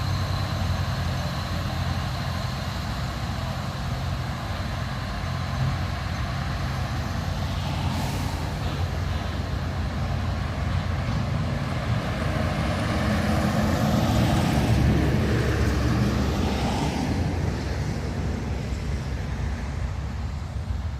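Heavy diesel truck engine labouring under load uphill, towing a dead truck on a cable. The engine grows louder a little past the middle, then eases off, with one short sharp burst of noise about eight seconds in.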